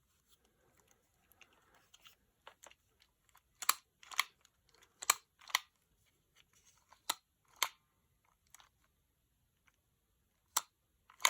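Hard plastic dinosaur toy figure being handled: scattered sharp clicks and taps of its plastic parts, with faint rustling between them.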